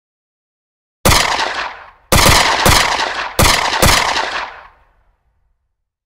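Five gunshots with ringing, echoing tails: a single shot about a second in, then two quick pairs, as sound effects for the bullet holes in a logo.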